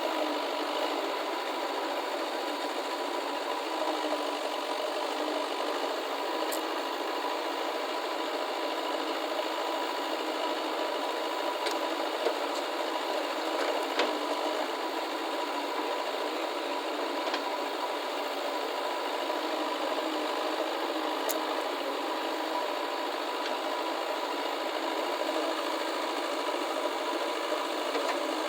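Diesel engine of a backhoe loader or tractor running steadily, with a few faint clicks.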